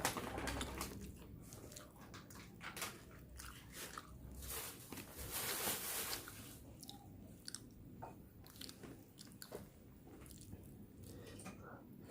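Close-miked chewing and biting of food from a nasi padang meal: irregular crisp crunches and wet mouth clicks, with a denser stretch of crunching about five seconds in.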